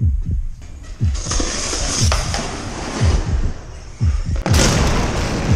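Dramatic background music built on a deep, falling boom about once a second. A loud rushing hiss rises over it about a second in and again, louder, from about four and a half seconds in.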